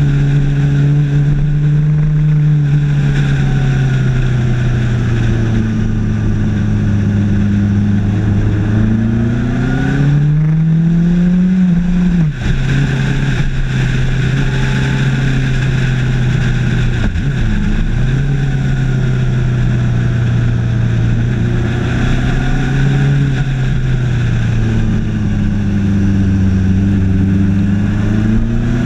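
Suzuki GSX1250FA's inline-four engine under way, its note rising and falling with the throttle. It climbs about ten seconds in, drops suddenly about twelve seconds in, and rises again near the end, over a steady rush of wind.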